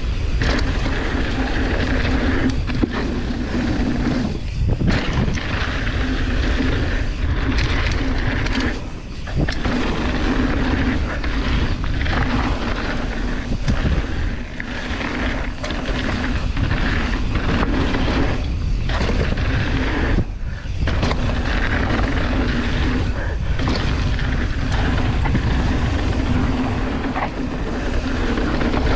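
Mountain bike rolling fast down a dirt and gravel trail: tyre noise and rattling over the bumps, under heavy wind rushing over the camera microphone, with a few brief dips.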